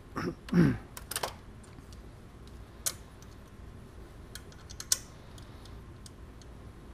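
A cordless power tool whirs briefly and winds down, falling in pitch, in the first second. Then scattered light metallic clicks and clinks follow as the loosened ground-strap bolt and bracket are handled by hand.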